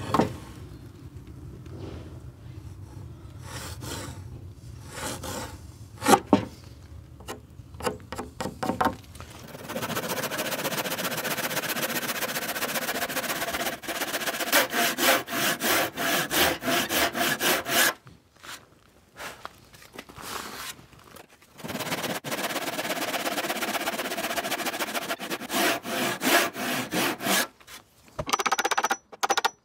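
Handsaw cutting into the end of a softwood board in fast, even back-and-forth strokes, in two long spells with a short pause between, after a few scattered starting strokes. A few sharp knocks come near the end.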